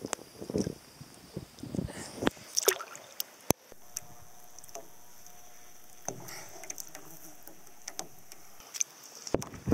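Lake water splashing and lapping right at the microphone, in irregular splashes. About three and a half seconds in it changes abruptly to a quieter, steady wash with a few small splashes.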